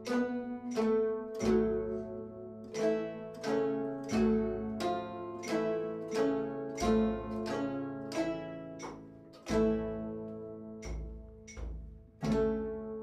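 Plucked string instrument playing a slow melody of single notes, each ringing on as it fades, with a deep low note sounding under some of them.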